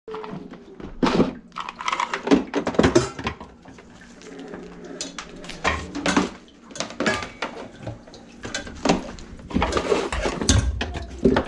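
Irregular knocks and metal clanks of pots and tools being moved about and set down around a kitchen sink cabinet.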